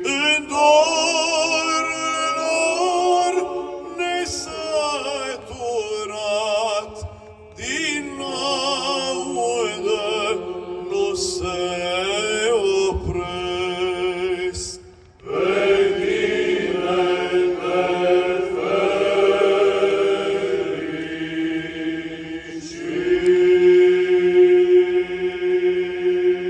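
Male Byzantine-chant (psaltic) choir singing a cappella in Romanian, the melody moving over a steady held drone note (the ison). The singing breaks off briefly about fifteen seconds in, then builds to a long held chord near the end.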